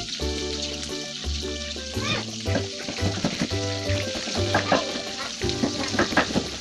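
Food frying and sizzling in a pan over a wood fire as it is stirred, with short scraping clicks, under background music with a steady bass line.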